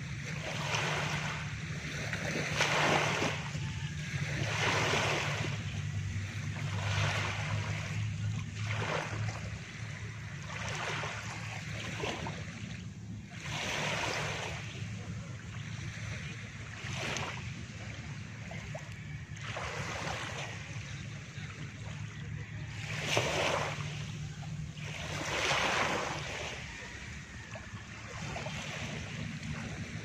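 Small waves lapping and washing onto a sand-and-pebble shore, a soft rushing surge every couple of seconds. A low steady hum runs underneath.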